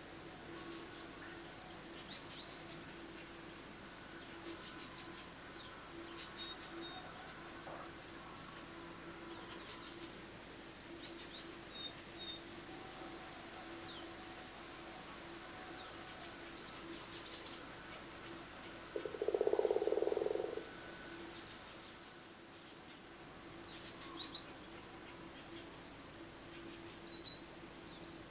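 Early-morning meadow wildlife: repeated high-pitched chirps and trills, loudest in three short bursts, with a lower call about two-thirds of the way through, over a faint steady hum.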